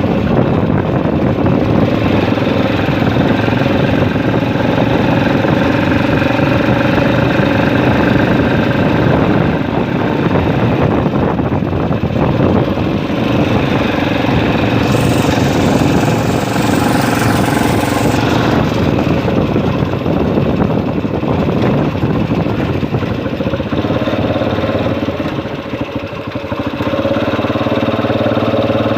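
Motorcycle engine running steadily, with a hiss that rises for a few seconds about halfway through.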